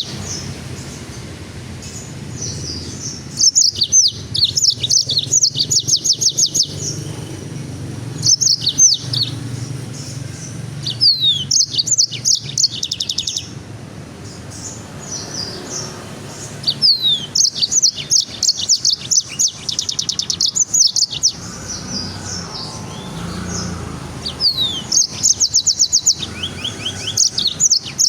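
A songbird singing in repeated bursts of rapid high-pitched trills and quick down-slurred whistles, each phrase one to three seconds long with short pauses between, over a faint low hum.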